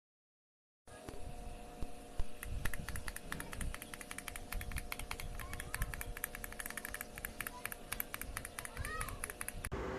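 Typing on an AULA F75 gasket-mount mechanical keyboard: a fast, uneven clatter of key clicks. It starts after about a second of silence and thickens about two seconds in, over a faint steady hum.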